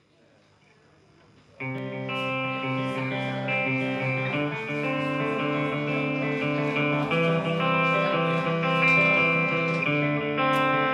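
Electric and acoustic guitars start a song's intro about a second and a half in, after faint room noise, playing ringing picked notes over a steady low note.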